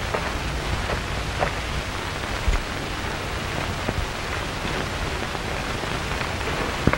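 Steady hiss with scattered crackles and pops: the surface noise of an old optical film soundtrack, with no dialogue or music over it.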